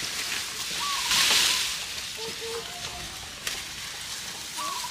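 Cattle pulling at and chewing cut bamboo branches: a dry rustling and crunching of leaves, loudest about a second in, with a few sharp snaps.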